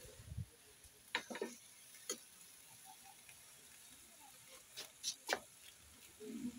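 Metal spatula clinking against a wok of stir-fried vegetables in a few sharp clicks: a couple close together about a second in, one at two seconds, and three more around five seconds.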